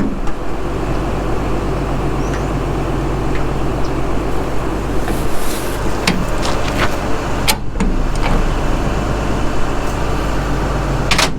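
A steady low mechanical hum runs throughout, with a few sharp metallic clicks from tools on metal, one about six seconds in, one about halfway and one near the end.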